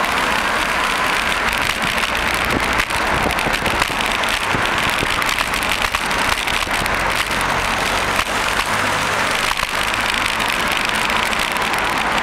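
Steady crackling hiss from riding a bicycle, picked up by a camera mounted on the bike: wind on the microphone and road vibration rattling through the mount.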